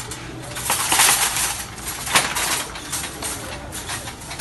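Wire shopping cart rattling and clanking as a person climbs into it and it is pushed along, with the loudest clatters about a second in and again a second later.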